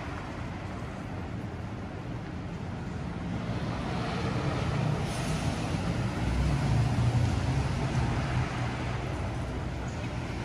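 A motor vehicle passing close on the street: engine rumble and tyre noise swell over a few seconds, peak a little past the middle, then ease off, over steady traffic noise.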